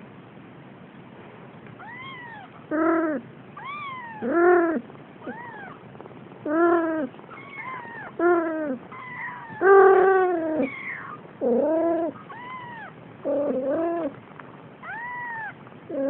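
Cats meowing over and over, about a dozen calls starting about two seconds in: thin, high kitten mews that rise and fall, alternating with lower, fuller meows.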